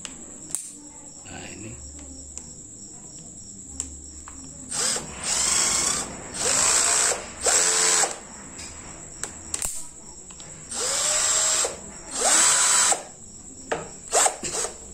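An NRT Pro 20 V cordless drill with a brushed motor, run unloaded in six short trigger pulls of up to about a second each. The motor's pitch rises as it spins up at the start of each pull. There are a few sharp single clicks between the runs.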